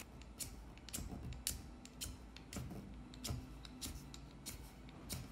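Steel striker scraped along the rod of a flint-and-steel fire starter: a dozen or so short, sharp scrapes at an uneven pace. It throws few if any sparks.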